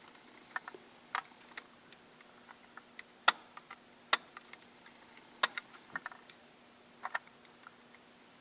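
Light clicks and taps of a small plastic N scale model railcar being handled, about a dozen at uneven intervals, over a faint steady hum.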